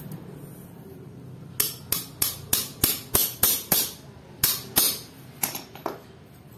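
Adjustable wrench used as a hammer, banging on a bent steel freewheel cog to pound it straight: about a dozen sharp metallic strikes, roughly three a second, with a short pause midway.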